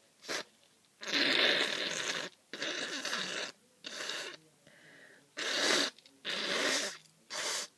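A person with a cold blowing a congested nose hard and wet, several times in a row, in rasping bursts of up to about a second each.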